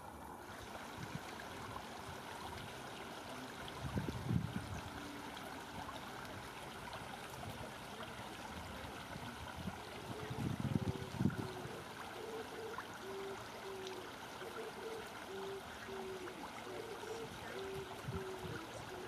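River water running and trickling over a shallow edge in a steady wash. There are two brief low rumbles, about 4 seconds in and again around 11 seconds. From about halfway, faint short low tones repeat at an even pace.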